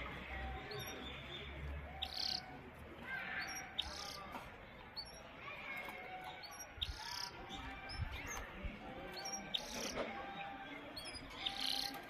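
Canaries chirping and singing in short bursts of high notes and trills, one burst every second or two.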